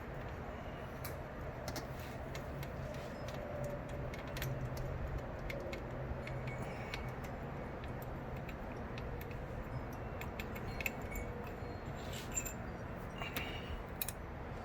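Scattered light metallic clicks and clinks, bunched together near the end, over a steady low hum.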